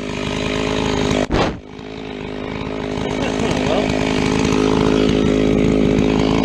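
Stihl chainsaw running at full throttle, cutting through a red oak log to buck it to length. There is a brief drop-out about a second and a half in, after which the engine sound grows steadily louder.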